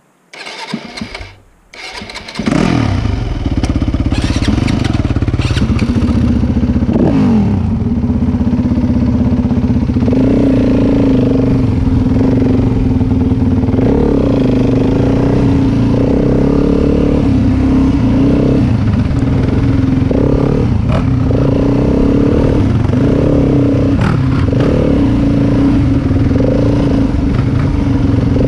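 Yamaha WR250F four-stroke single-cylinder dirt bike engine starting about two seconds in, then running loudly as the bike is ridden along a dirt trail, the revs rising and falling with the throttle.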